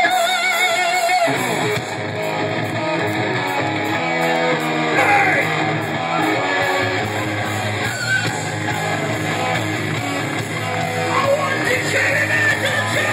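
Heavy metal band playing live over a loud PA: distorted electric guitars, bass and drums, with a shouted, sung vocal over them. A held, wavering note gives way to the full band about a second in.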